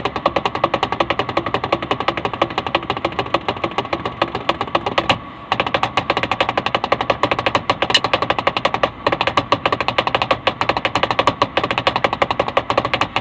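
Rapid, continuous drumming, several strokes a second, with a brief break about five seconds in.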